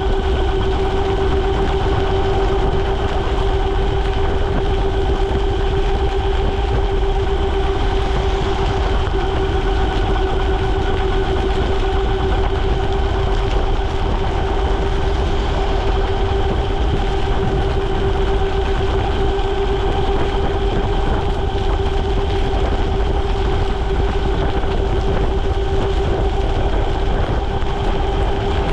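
Ariel Rider Grizzly e-bike's electric hub motor whining at one steady pitch while cruising at about 33 mph, over a steady low rumble of wind and wet tyres on the road.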